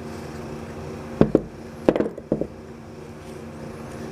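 Metal parts of a dismantled Embraco refrigerator compressor knocking and clicking together as they are handled: three pairs of short, sharp knocks between about one and two and a half seconds in, over a steady low hum.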